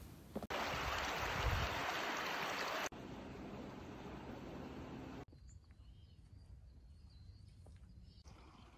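Outdoor ambience in several cut-together clips: a loud, even rushing noise for about two and a half seconds, then a quieter rush, then a quiet stretch with faint bird chirps.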